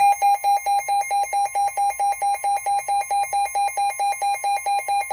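Emergency alert tone: a harsh, buzzy beeping at one steady pitch, repeating about four times a second.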